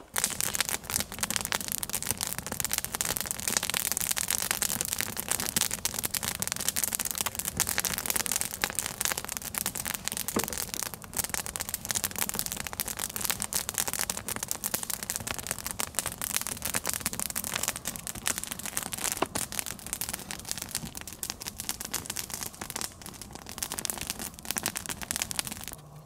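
Wood campfire burning and crackling close up: a steady run of small pops and snaps, with a few louder single snaps.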